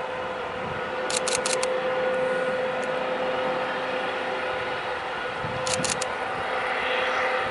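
Freight train rolling past: a steady running noise with groups of sharp wheel clicks over rail joints, one group about a second in and another near the end.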